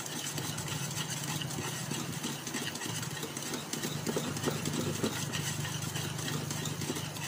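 Wire whisk stirring creamed ghee and sugar in a bowl, with faint soft scraping strokes, over a steady low hum.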